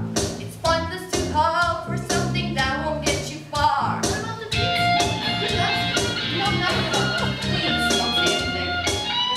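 Music: a voice singing over a steady bass accompaniment, changing about halfway through to instrumental music led by guitar with held notes.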